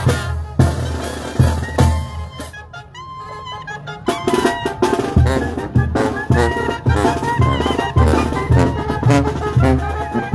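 Marching brass band playing: a bass drum keeps a steady beat under trumpets, trombones and a sousaphone. The band drops back for about a second roughly three seconds in, then plays on fully.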